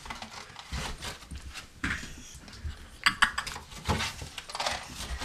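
Handling noise from a cardboard cereal box: rustling with scattered light knocks and clicks, a quick run of them about three seconds in.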